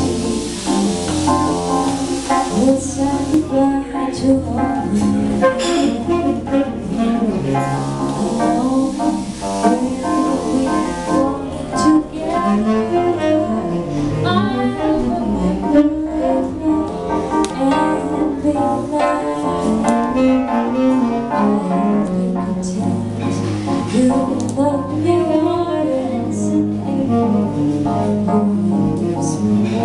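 Live jazz: a woman singing into a microphone, accompanied by saxophone and electric keyboard.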